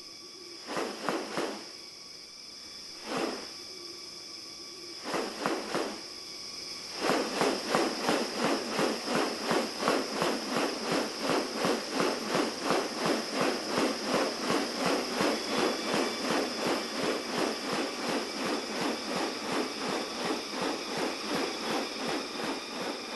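Insects drone steadily at a high pitch. Over them come a few short pulses, then from about seven seconds in a long, even run of pulses at two to three a second.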